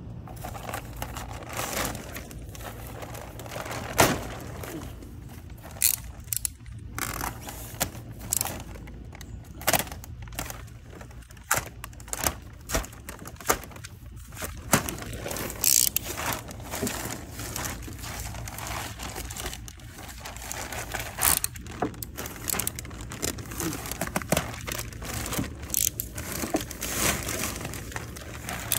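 Clear plastic wrapping crinkling and tearing as it is cut with a knife and pulled off a car bumper, with irregular crackles and sharp rips throughout.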